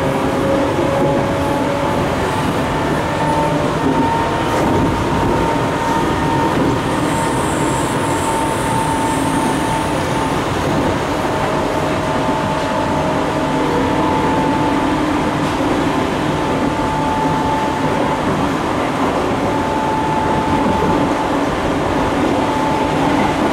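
Seibu New 101 series resistance-control electric train running, heard from inside the passenger car: a whine from the traction motors and gears rises in pitch for the first few seconds, then holds steady over the rumble of the wheels on the rails.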